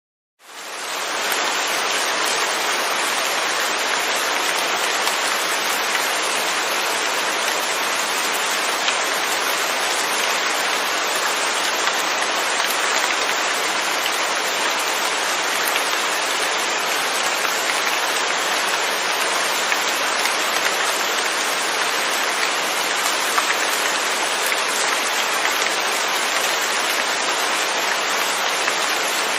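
Steady rain falling, an even hiss with no thunder, fading in over the first second.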